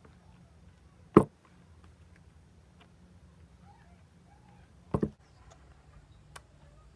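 Two loud knocks on a wooden table with a faint low hum underneath: one about a second in, then a quick double knock near five seconds in.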